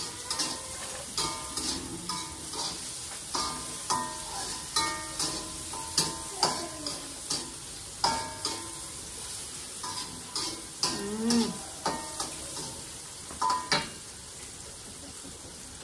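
Food frying in a pan on a gas stove: a steady sizzle with irregular clicks and scrapes of a utensil stirring against the pan. A short low call sounds about two-thirds of the way through.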